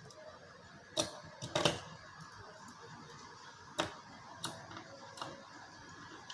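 A few scattered sharp clicks and taps of small tools and parts being handled at a repair bench, the loudest about a second in and a pair just after.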